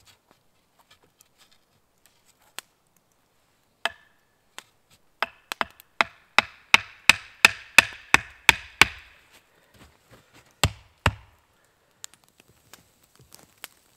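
Axe chopping wood: a few single strikes, then a quick run of about a dozen chops at roughly three a second, and two heavier, deeper thuds a little later.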